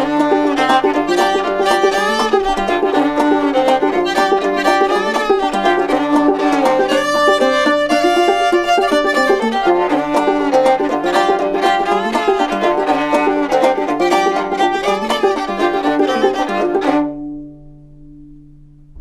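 Fiddle and banjo playing an old-time tune together, the bowed fiddle melody over the picked banjo. The playing stops together about 17 seconds in, leaving a low note ringing out faintly.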